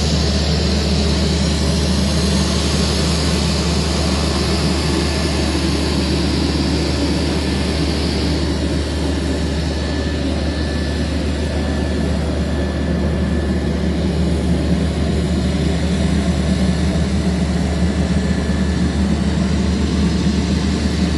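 Twin-turboprop calibration aircraft's engines and propellers running steadily as it taxis on the runway, a continuous drone with a faint thin whine in the middle.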